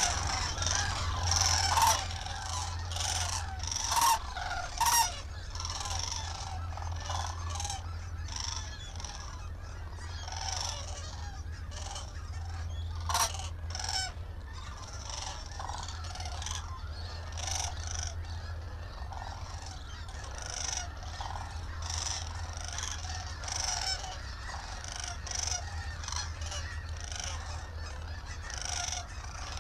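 A flock of sandhill cranes calling, many overlapping bugle calls throughout, a little louder in the first few seconds. A steady low hum runs underneath.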